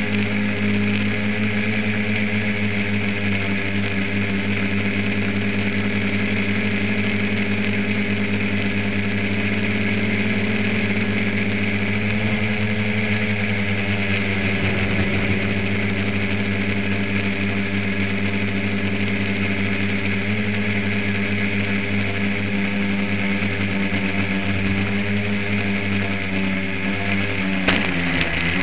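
Tricopter's three electric motors and propellers buzzing steadily in flight, heard from its onboard camera, with the pitch wavering as the throttle changes. Near the end the pitch dips and rises again, with a couple of sharp clicks.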